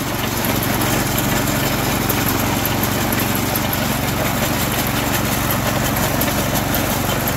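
Small gas engine of a 1963 Ariens Sno-Thro 10ML60D snowblower running steadily as the machine is driven through a turn on gravel by its ratchet drive. It comes up slightly in level at the start.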